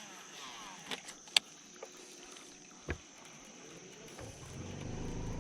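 A few light clicks and knocks on the boat, then a low steady motor hum starts about four seconds in, under a faint steady high whine.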